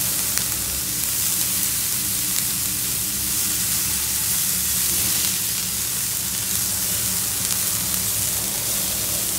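Chopped French beans and capsicum frying in butter in a nonstick pan, stirred with a silicone spatula: a steady sizzle.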